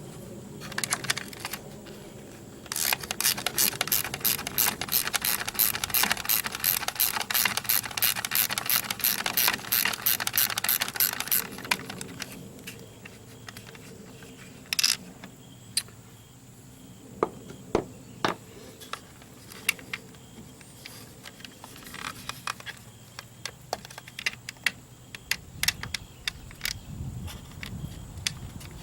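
A ratchet tool clicking in a rapid, even run for about nine seconds as a fastener on a trolling motor is turned. After that come scattered clicks and knocks of metal parts being handled.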